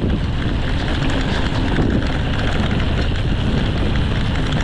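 Wind buffeting the camera microphone, with the tyres rolling over a dirt track, as a mountain bike descends; a steady, dense rushing noise.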